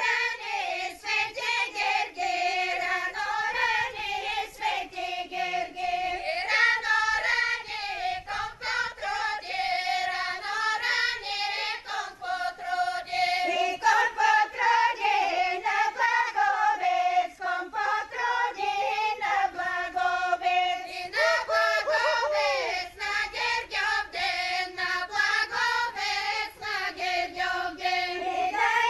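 A group of women singing a Bulgarian folk song together for a horo chain dance, in short phrases with brief breaks for breath.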